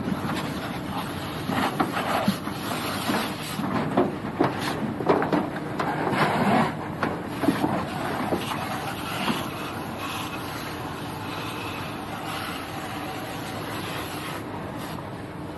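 Burnt debris and corrugated metal roofing sheets scraping and clattering, over a steady rushing noise. The clatter dies down about ten seconds in, leaving the steady noise.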